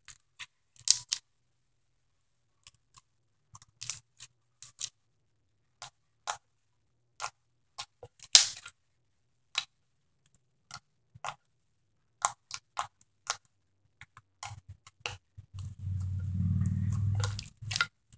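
Slime with foam beads being squished and pressed by hand, making irregular sharp pops and clicks. A low hum comes in for about two seconds near the end.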